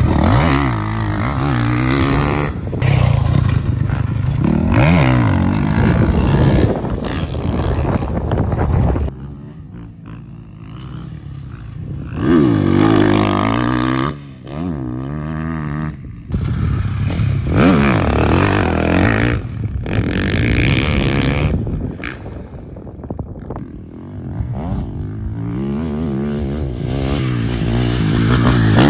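Dirt bike engines revving hard as riders pass on a motocross track, the pitch climbing through the gears and falling as the throttle is rolled off, over and over. There are a couple of quieter gaps between passes.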